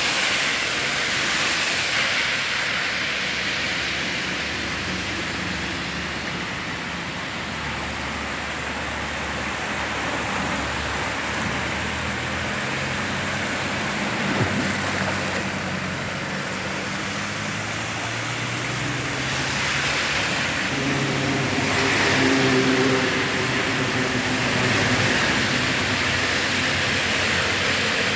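Steady rush of floodwater and rain. Car engines pass through the water, one pushing a bow wave, with the engine hum strongest in the last third.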